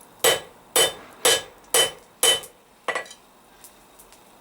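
Blacksmith's hammer striking a hot steel bar on the anvil, shouldering the taper to a right angle: five strong blows about two a second, each with a short metallic ring, then two lighter taps about three seconds in.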